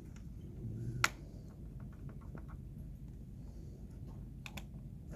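Small clicks and taps of a small screwdriver and laptop parts being handled while the keyboard retaining screws are driven in, with one sharp click about a second in and another at the very end.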